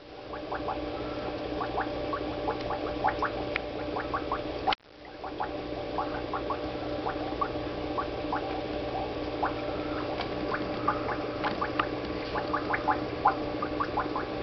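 Aquarium filter running: a steady hum with continuous bubbling and gurgling water, many small pops in quick succession.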